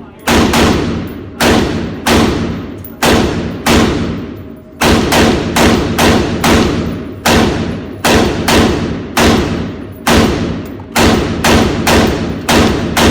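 Firearm shots fired one after another at an uneven pace, about two dozen in all. Each is a sharp crack that trails off in echo.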